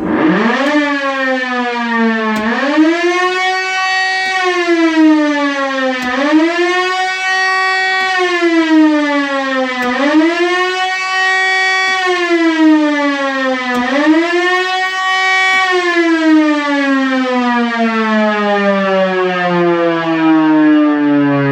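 Civil-defence siren switched on and wailing, its pitch rising and falling about every four seconds, then winding down with a slowly falling pitch near the end. It is sounding a municipal test alarm.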